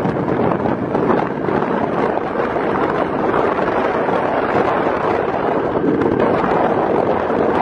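Wind rushing over the microphone, a loud steady roar of noise with slight fluttering.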